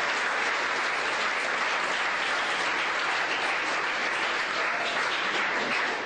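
Audience of students applauding steadily in welcome.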